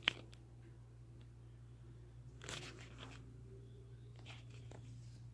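A sharp click just after the start, a short rustle about two and a half seconds in and a few faint ticks, over a low steady hum.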